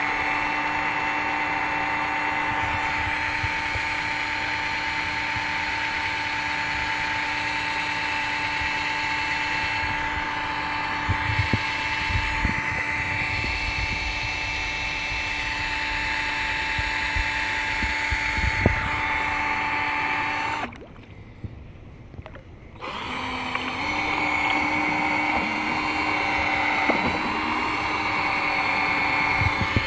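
An 18-volt cordless drill running steadily at full speed, spinning a propeller shaft in the water as a home-made kayak motor, with a steady whine. It stops for about two seconds around two-thirds through, then starts again at a slightly higher pitch, with a few low thumps along the way.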